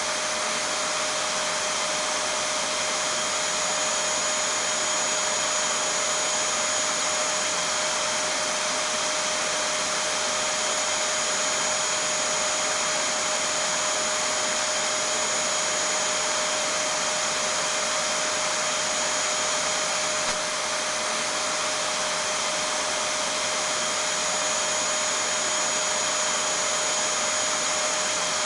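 Vacuum cleaner running steadily: an even rushing noise with a constant mid-pitched hum and a high whine over it, unchanging throughout.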